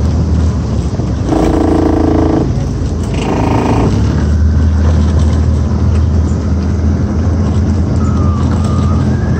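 Small boat's outboard motor running with a steady low drone. Two short shouted calls come through about one and three seconds in.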